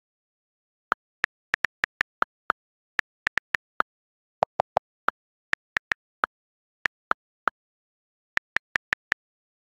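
iPhone on-screen keyboard clicks as a message is typed key by key: about thirty short, sharp taps at an uneven typing pace with dead silence between them. Three deeper clicks come about four and a half seconds in.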